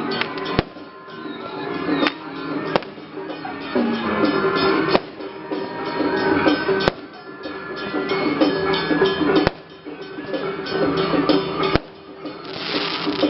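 Temple procession music of drums and other percussion over steady pitched instruments, with a sharp bang cutting through roughly every two seconds.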